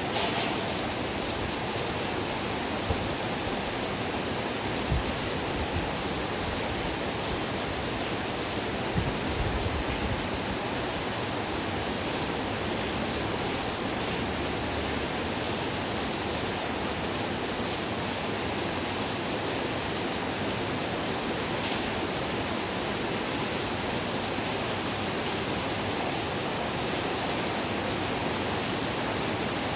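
Heavy rain falling steadily, an even hiss with no change in strength. A few brief low thuds come in the first ten seconds.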